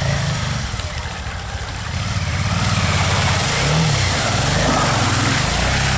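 Motorcycle engine running under way, its revs rising and falling as the throttle is worked, with a hiss that grows louder about two and a half seconds in.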